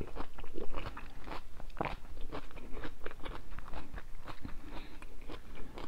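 Close-miked chewing and lip-smacking of a mouthful of seafood boil: many short, irregular wet clicks and crunches.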